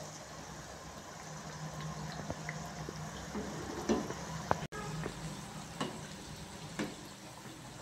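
Moong dal kachoris deep-frying in hot oil: a steady sizzle with scattered pops, and a few sharper clicks now and then.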